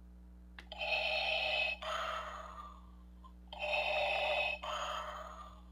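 Electronic sound effect from a Funko Pop lights-and-sound Darth Vader bobblehead's built-in speaker, set off by pressing the head down. It plays twice, each time a steady part of about a second followed by a part that fades away.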